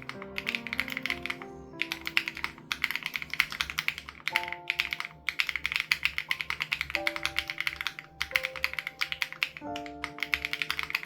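Fast typing on an SPM AL87B mechanical keyboard with BSUN Raw switches and its sound-dampening foam removed: a dense run of keystrokes broken by a few short pauses. Background music with held chords and a steady low pulse plays underneath.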